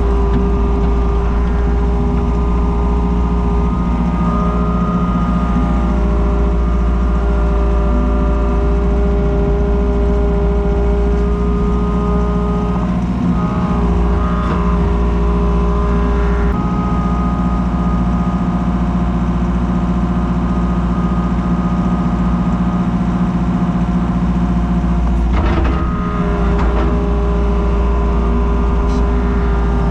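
Komatsu skid steer's engine running steadily, with a brief clatter of knocks about 25 seconds in.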